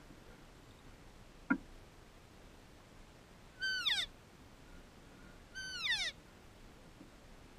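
Two cow elk mew calls, each a high held note that slides down in pitch, about two seconds apart. A short sharp chirp comes about a second and a half in.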